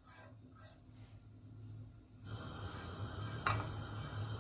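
Spatula stirring cumin seeds in oil in a nonstick pan: a few soft, faint scrapes over a low hum and light hiss. The first couple of seconds are nearly silent.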